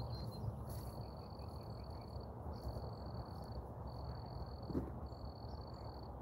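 A field insect trilling at a high pitch in trills about a second long with short breaks between them, over a steady low rumble.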